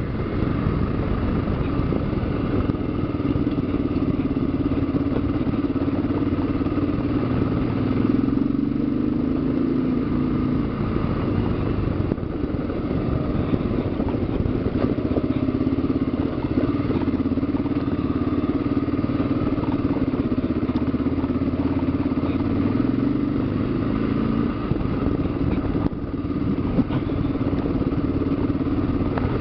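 Kawasaki KLR motorcycle's single-cylinder engine running at a steady trail pace, heard from on the bike, with the rough rattle of the machine on a gravel dirt track.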